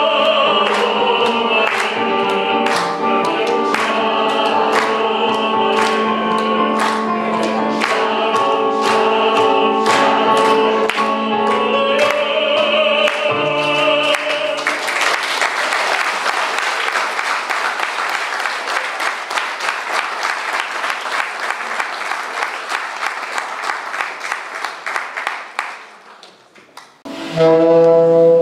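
Audience clapping in time, about two claps a second, to a song with singing and instrumental accompaniment. The music stops about halfway through and gives way to free applause that dies away. Just before the end a keyboard starts playing a new piece.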